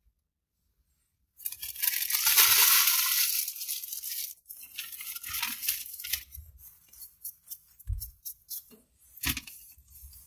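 Paper fast-food packaging being handled, crinkling and rustling. A loud burst of crinkling starts about a second and a half in and lasts about three seconds, then softer irregular crackles and rustles follow.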